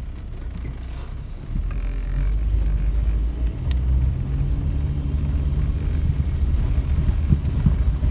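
Car engine pulling under throttle on a muddy dirt track, a low steady drone that grows louder about a second and a half in, with a couple of knocks near the end.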